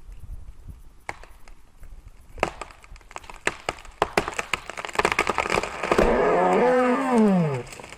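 Tree wood cracking and splintering in a rapid series of sharp snaps that build up, then a creaking groan that rises and falls in pitch as the fibres give way.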